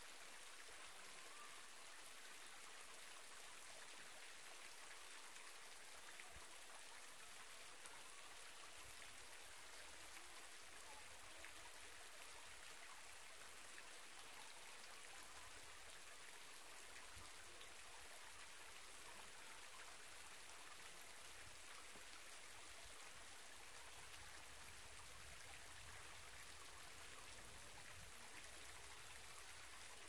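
Faint, steady splashing of a thin waterfall trickling down rock into a pool, its flow cut to a dribble by drought.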